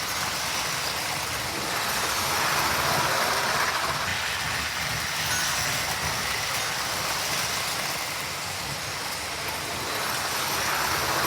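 Lionel postwar O-gauge toy trains running on three-rail track: a steady whir and rattle of the electric motors and wheels, growing louder about two seconds in and again near the end as a train passes close.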